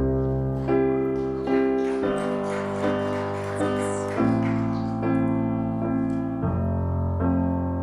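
Piano playing the slow opening chords of a ballad, each chord held, with the bass note changing about every two seconds.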